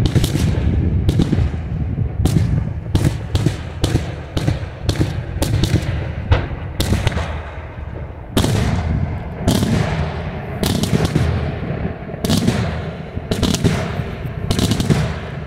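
Daytime aerial fireworks bursting in a long, irregular string of sharp bangs, often less than a second apart, over a constant low rumble of echoing reports.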